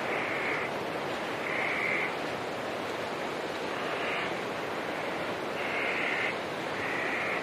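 Nature ambience: a steady, even rushing like running water, with a short buzzy animal call repeating about six times, each lasting about half a second.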